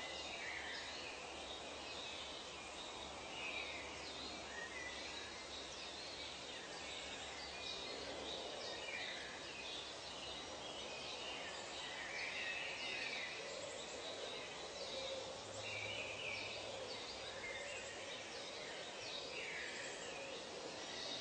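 Nature ambience: birds calling on and off, a short call every second or two, over a steady background hiss.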